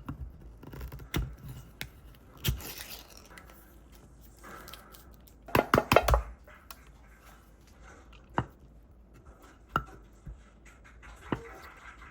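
Kitchen prep handling sounds: scattered clicks, taps and light scrapes of utensils and packaging, with a quick run of several sharp knocks about six seconds in.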